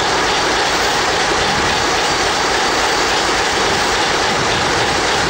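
Tk3 steam locomotive standing and venting steam in a steady, loud hiss.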